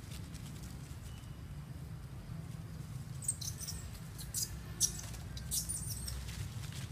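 Short high squeaks and crackles of leaf litter as baby monkeys scramble and play, clustered from about three seconds in, over a steady low rumble.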